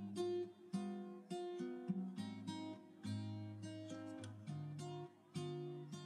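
Background music on acoustic guitar: single plucked notes ringing out one after another.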